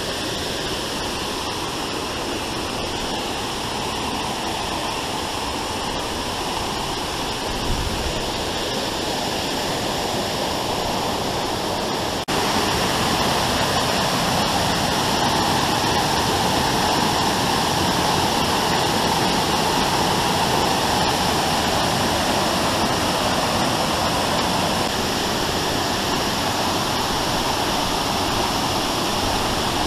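Waterfall pouring steadily, a dense hiss of falling water that becomes louder about twelve seconds in. A brief low bump comes a little before that.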